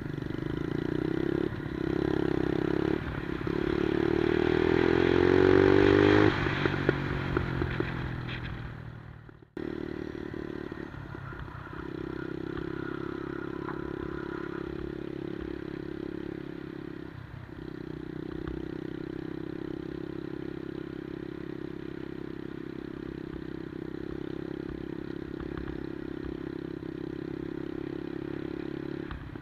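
110cc Monkey-style minibike's single-cylinder engine revving up with a rising pitch for about six seconds, then dropping off. After an abrupt cut it runs at a steady pitch, dipping briefly twice.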